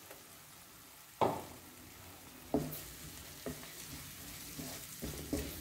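Wooden spatula stirring a frying onion and spice mixture in a non-stick pan, with a few sharp knocks of the spatula against the pan starting about a second in, over a faint sizzle.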